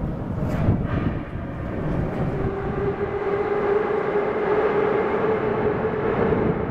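Metro train's electric traction motors whining, a steady tone that rises slowly over a low rumble, echoing in the vaulted station hall.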